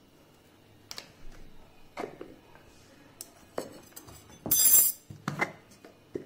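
Scattered clinks and knocks of kitchen utensils and spice containers being handled, with a louder hissy noise lasting under half a second about four and a half seconds in.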